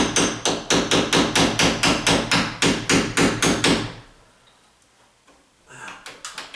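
A rapid, even run of hard knocks, about six a second, that stops about four seconds in. A few fainter knocks follow near the end.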